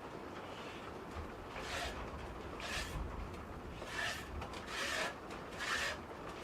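Goat being hand-milked: streams of milk squirted from the teats into a container, a short hissing spurt about once a second, these being the first squirts stripped out to be thrown away.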